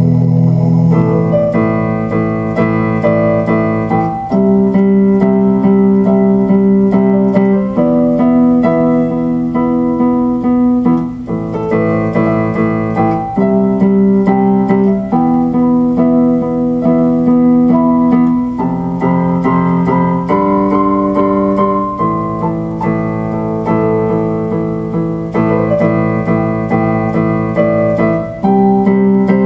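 Keyboard music, piano-like electric piano chords changing every second or two at a steady pace.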